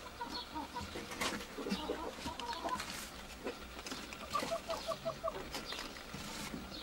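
Chickens clucking, with a quick run of about five short clucks between four and five seconds in, over scattered rustling clicks.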